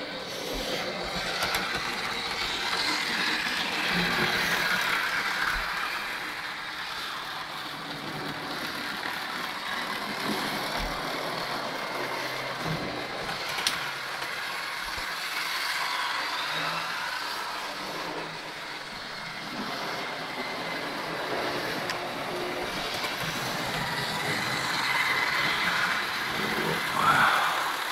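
Model trains running round the layout: a steady running noise of small locomotive motors and wheels on the rails, swelling and easing as the trains pass, with one sharp click about 14 seconds in.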